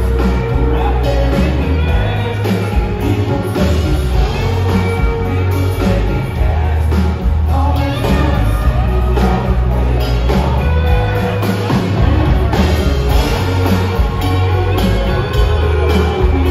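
Live country band playing: electric guitars and drum kit with several male voices singing into microphones, heard loud through the band's PA.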